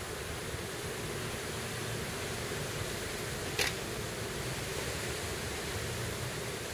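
Steady hiss of outdoor background noise, with one short sharp tap about three and a half seconds in.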